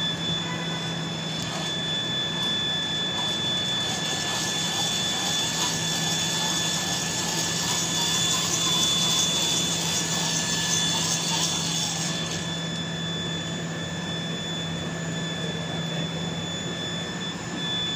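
Steady mechanical hum and whine of a running machine, with a rushing noise that swells in about four seconds in and drops away suddenly about twelve seconds in.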